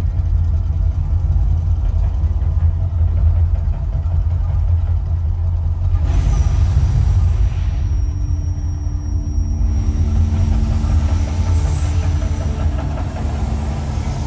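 Deep, steady rumble of the Mirage's artificial volcano erupting, the show's low rumbling effect with its gas flames firing.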